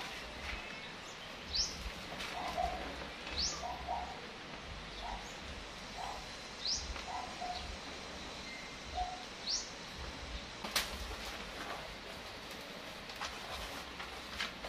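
Birds calling: a thin, high chirp that sweeps upward, repeated four times about every two to three seconds, with short lower notes scattered between. A few sharp clicks, the loudest about eleven seconds in.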